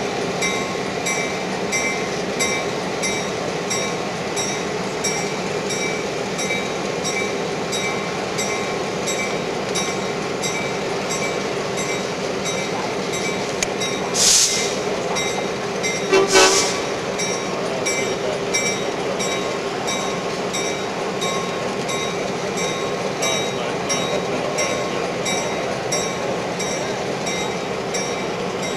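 Locomotive running steadily. About halfway through come two short, sharp hisses about two seconds apart.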